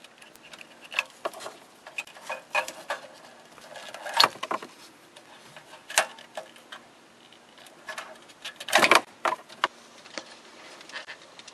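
Wiring-harness connectors being unplugged from the back of a factory car radio: irregular clicks and rattles of the plugs, latches and wires. Sharper snaps come about four and six seconds in, and the loudest cluster about nine seconds in.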